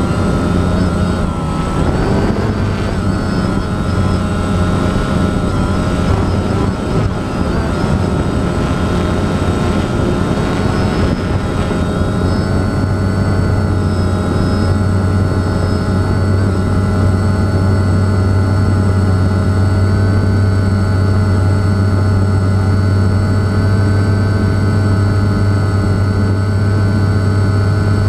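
Drone's electric motors and propellers whining steadily, heard loud and close from on board as it lifts and climbs. The pitch wavers during the first twelve seconds or so, then holds steady.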